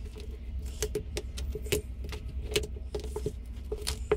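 Boiled brown crab being pulled apart by hand: its shell cracking and clicking in an irregular run of sharp snaps as legs and shell pieces are broken off. A steady low hum sits underneath.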